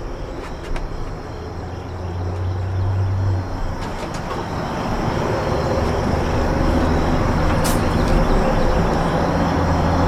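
A motor vehicle's engine running, a low steady hum that grows gradually louder as it approaches.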